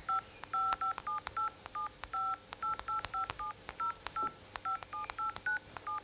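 DTMF touch-tones from a telephone keypad: a quick, uneven run of short two-tone beeps, about three or four a second. Each key sounds its own pair of pitches, one low and one high, as numbers are dialled.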